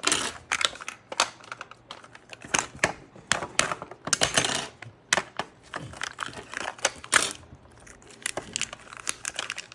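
Handling and unwrapping a Mini Brands plastic capsule ball: irregular sharp plastic clicks and crinkling as the wrapping comes off and the ball is opened.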